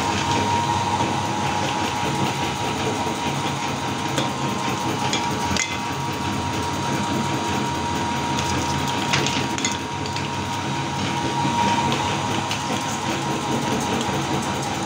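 Electric-motor-driven meat grinder running with a steady hum and whine, its auger crunching small hard cookies into crumbs with scattered sharp cracks.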